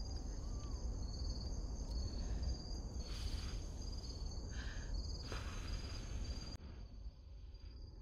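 Crickets chirping steadily, a continuous pulsing trill. A few short puffs of breath are blown onto burnt fingertips around the middle.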